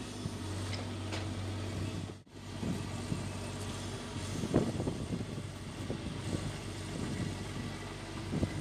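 Excavator diesel engine running steadily. After a brief break a little over two seconds in, a machine's engine runs on with irregular metallic clanks and knocks, the loudest about four and a half seconds in.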